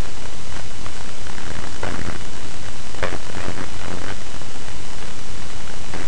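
Loud, steady hiss of a poor-quality microphone, with faint, muffled pitched sounds about two, three and four seconds in.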